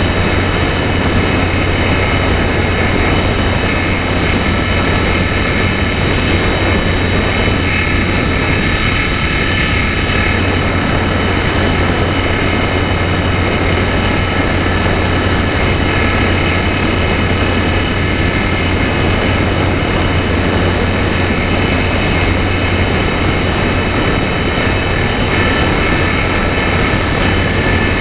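Slow Stick RC plane's electric motor and propeller running steadily at full throttle in a climb, heard through the onboard camera's microphone as a constant high whine over rushing wind noise.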